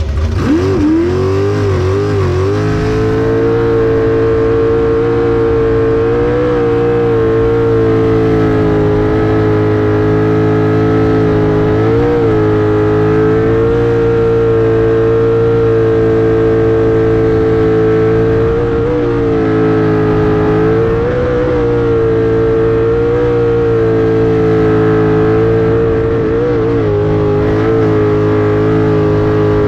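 Sprint boat engine heard from the cockpit, pulling up in pitch over the first two seconds, then holding a steady high-revving note at full throttle with a few brief wobbles in pitch.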